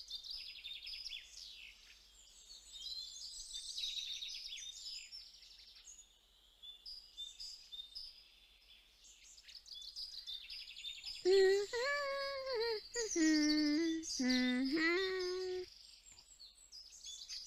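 Small birds chirping and twittering in high, quick calls throughout. About eleven seconds in, a girl's voice hums a short tune of a few held notes, stepping down in pitch, for about four seconds.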